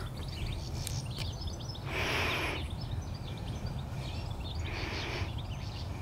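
Wind buffeting the microphone outdoors as a steady low rumble, with faint bird chirps in the background and two short bursts of noise, about two and five seconds in.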